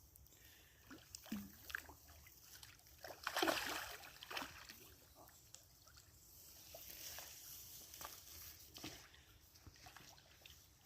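Water splashing and sloshing, with scattered short knocks; the loudest splash comes a little over three seconds in.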